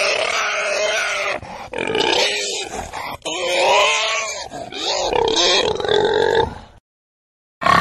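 Domestic pig grunting in a dense, loud run of pitched calls that stop abruptly about seven seconds in, followed by one short call near the end.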